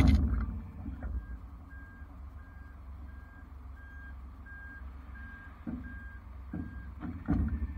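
Rollback tow truck's backup alarm beeping at an even pace, about one and a half beeps a second, over a steady low engine rumble. A sharp clunk sounds at the very start, and a few thumps come near the end.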